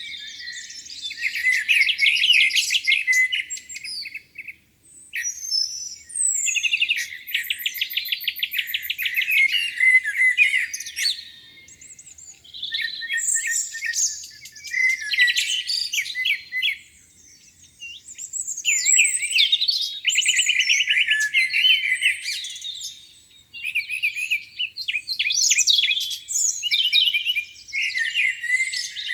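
Songbirds singing: phrases of rapid trills and chirps a few seconds long, one after another, with short pauses between.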